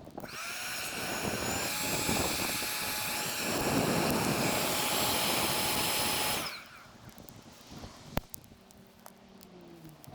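A small motor-driven machine spins up with a rising whine, runs steadily with a rushing hiss for about six seconds, then is switched off abruptly.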